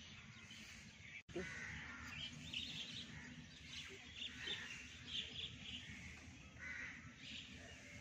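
Many birds chirping and calling, crows cawing among them, faint over a steady low background. The sound drops out for an instant about a second in.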